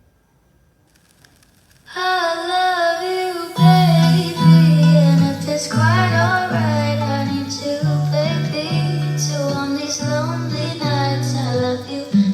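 Marshall Kilburn portable Bluetooth speaker playing a pop song. After about two seconds of near silence between tracks, a female voice sings over guitar, and a bass line comes in about a second and a half later.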